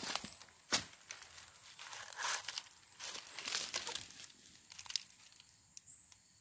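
Dry leaves and twigs rustling and crackling underfoot in short, irregular bursts, with a sharp click about three-quarters of a second in.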